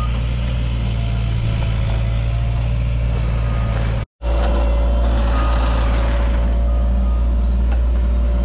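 Cat 303.5 mini excavator's diesel engine running steadily under working load, with a steady high whine over the low drone, as its bucket pushes dirt back into a trench to backfill it. The sound cuts out completely for a moment about four seconds in, then resumes.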